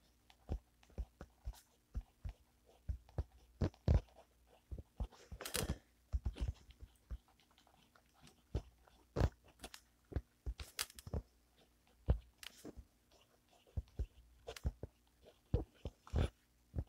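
Fountain pen with a fine stainless-steel Bock #6 nib writing on a spiral notepad: faint, irregular scratches and ticks as the strokes are made, with a short pause about halfway through.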